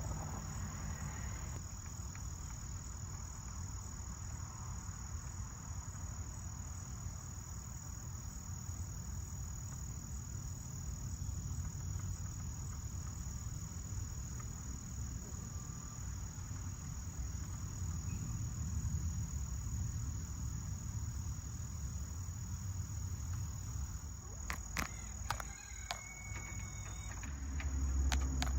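Steady high-pitched chorus of insects, with a low rumble underneath and a few sharp clicks near the end.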